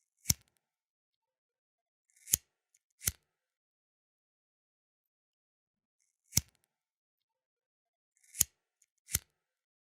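Flint lighter being worked twice in the same pattern. A single sharp metallic click is followed about two seconds later by a short scrape ending in a click, the flint wheel being struck, and then another click under a second after that.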